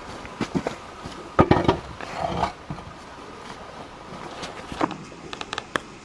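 Footsteps through wet mud and brush on a forest track: irregular squelches, knocks and sharp clicks, loudest in a cluster about a second and a half in, with a quick run of crisp clicks near the end.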